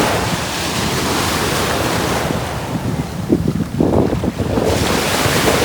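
Ocean surf washing in, with wind buffeting the microphone.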